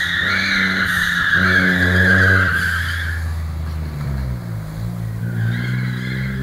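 Daihatsu Charade GTti's turbocharged three-cylinder engine pulling hard as the tyres squeal through a tight bend for about three seconds. The engine note then drops and settles, and a second, shorter tyre squeal comes near the end.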